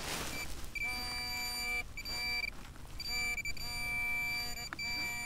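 A metal detector pinpointer beeping in the flooded mud as it is pushed at a buried target, signalling metal close by. A steady high electronic tone with a lower buzzing tone under it cuts in and out several times, each stretch lasting about a second.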